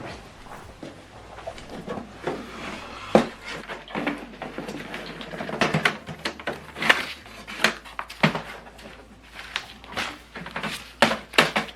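Handling at the rear paper tray of an HP DeskJet inkjet printer: irregular plastic clicks and knocks with paper rustling as a stack of A4 paper is moved into place, a sharp knock about three seconds in.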